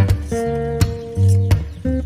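Background music: an instrumental acoustic guitar track with plucked and strummed chords over a bass line.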